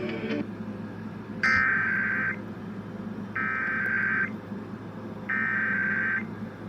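Emergency Alert System SAME header: three bursts of warbling two-tone digital data, each about a second long and about a second apart. The bursts mark the start of an EAS Required Monthly Test alert and carry its coded originator, event and area.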